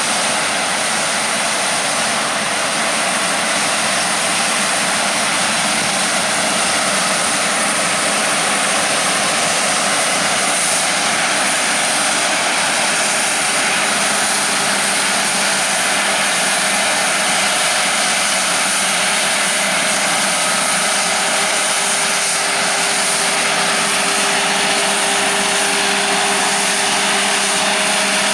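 Heavy harvest machinery running steadily as a continuous wash of engine and mechanical noise. A lower steady engine note joins about two-thirds of the way through.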